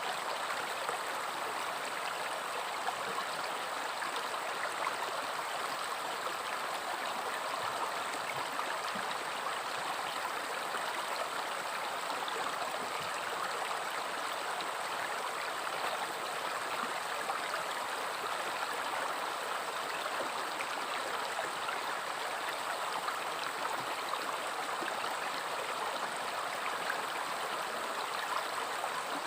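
A river or stream flowing steadily over rocks, a continuous rushing and burbling of water with no change in strength.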